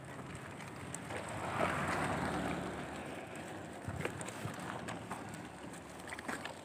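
A child's plastic push-handle tricycle rolling over a rough road, with scattered clicks and rattles from the second half on. A rushing noise swells about a second and a half in and fades again.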